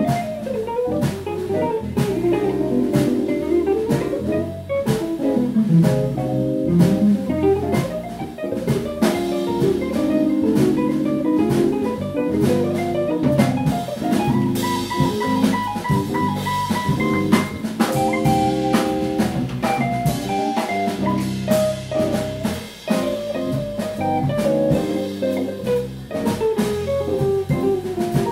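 Live small jazz combo: a hollow-body archtop electric guitar takes a solo of fast single-note lines, with one long held high note about halfway through. Electric bass walks underneath and the drum kit keeps time with cymbals and snare.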